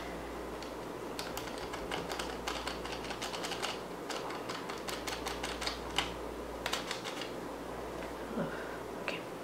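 Light, irregular clicks and crinkles of a small plastic sachet being handled and tapped to empty slime powder into a plastic pot.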